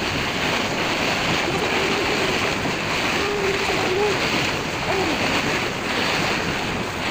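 Wind blowing across the microphone over choppy sea water splashing around a ferry boat, a steady loud rush that swells and eases about once a second.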